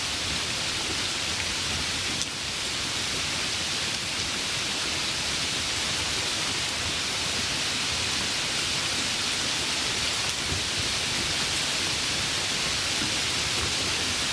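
Steady rain falling by a river: an even, unbroken hiss of rain and running water.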